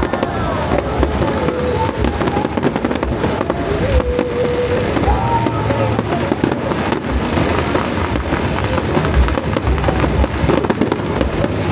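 A fireworks display going off continuously: a dense, unbroken run of bangs and crackles, many overlapping every second.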